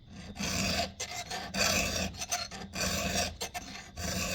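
A new round chainsaw file rasping across a cutter tooth on a Husqvarna 372XP chain in a series of short, light strokes, about five or six. The sound is gritty, the sign of a sharp file biting into and taking metal off the tooth without much pressure.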